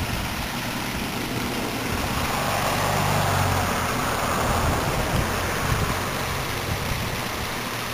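Small garden waterfall splashing into a lily pond: a steady rush of water that grows a little louder in the middle, over a low rumble.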